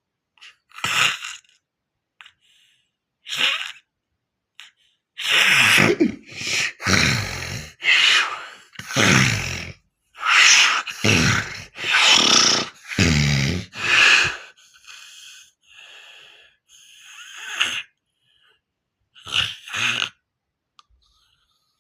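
Loud snoring from a sleeper: a run of heavy snores with a low rattle, one about every second, then fainter breaths and two more snores near the end.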